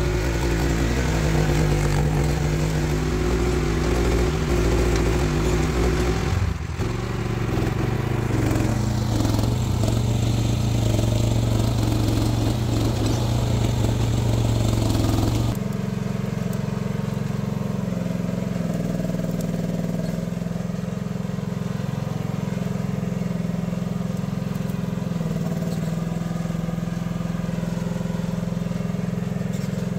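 Diggit EM15 mini excavator's engine running steadily, its pitch shifting about six seconds in; about halfway through the sound drops suddenly to a lower, smoother run, like the engine settling toward idle.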